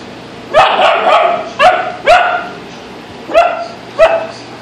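Greater Swiss Mountain Dog puppy barking in play: six sharp barks, a quick run of four followed by two more, spaced out, near the end.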